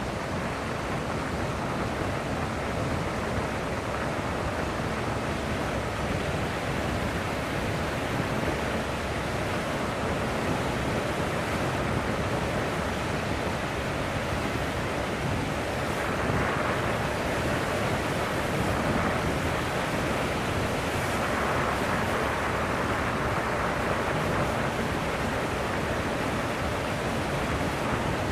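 Steady rush of wind over the microphone of a camera mounted on a vehicle driving along a wet sand beach, growing a little louder about two-thirds of the way through.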